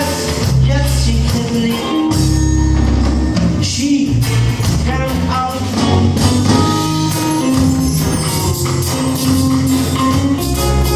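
Band music in a passage without lead vocals: a bass line with held notes, melodic lines above it and steady percussion.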